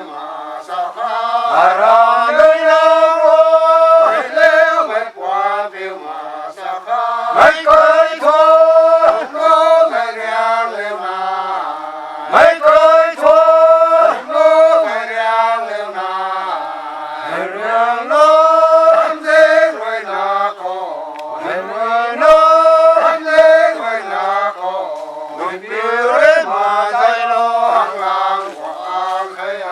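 Rongmei men singing their traditional forest folk song, a chant-like melody in long held phrases that come round again every few seconds.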